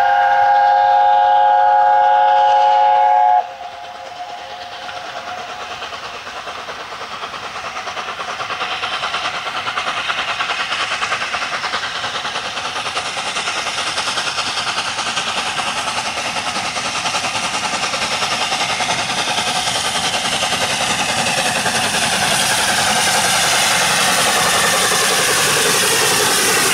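LNER A4 Pacific 4464 Bittern sounding its chime whistle, one chord held for about three and a half seconds. Then the locomotive's rapid steam exhaust beats and the rumble of the train grow steadily louder as it approaches and runs past.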